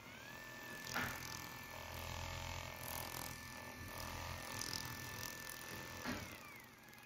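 Xiaomi mini massage gun's motor running with a thin, steady whine. At the start the pitch dips and settles at a new steady note, like a change of speed setting. There is a click about a second in, and near the end the motor switches off and its whine glides down as it spins down.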